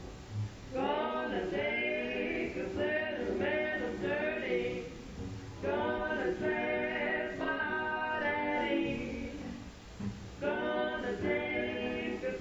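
Recorded singing by several voices in harmony, in three sung phrases with short pauses between them.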